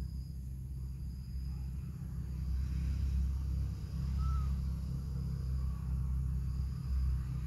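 Outdoor ambience: a steady low rumble with faint insect chirring above it, and one short chirp about four seconds in.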